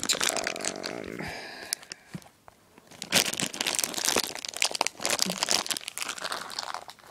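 Clear plastic packaging crinkling and rustling as it is handled and pulled at by hand, trying to get it open; quieter for a moment after about two seconds, then a dense run of crinkling from about three seconds in.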